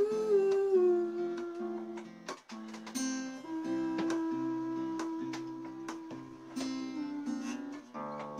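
Acoustic guitar picked and strummed in a steady pattern, with a man's wordless sung notes over it: one gliding down about a second in, then a long held note through the middle.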